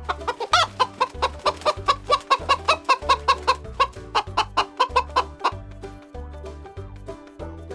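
Chicken clucking in a fast run of short calls, about five a second, stopping about two-thirds of the way through, over background music.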